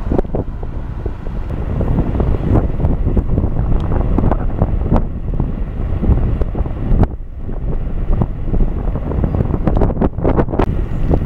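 Wind buffeting the microphone of a camera moving along a road, a dense low rumble broken by frequent sharp knocks and rattles.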